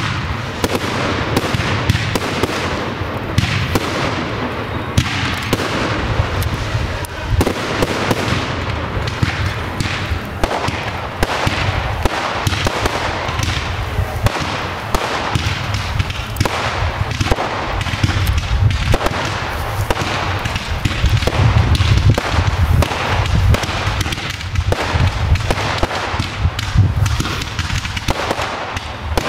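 Professional fireworks display: shots launching and bursting in a dense, continuous run of bangs, many a second, with hardly a pause.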